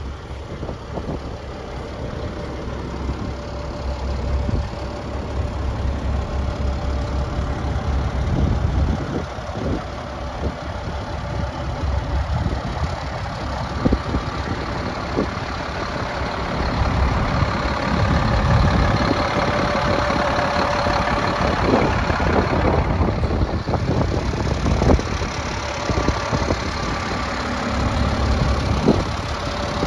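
The Caterpillar diesel engine of a 1999 Kenworth tandem-axle truck idling, a steady low rumble with a few brief sharp ticks along the way.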